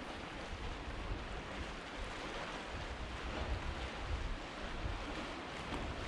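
Sea surf washing steadily below, with wind gusting on the microphone in uneven low rumbles.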